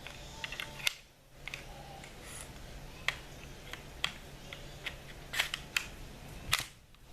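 Scattered light clicks and scrapes of a Springfield XD9 pistol's slide and frame being handled as the slide is fitted back onto the frame during reassembly, with a few sharper clicks in the second half.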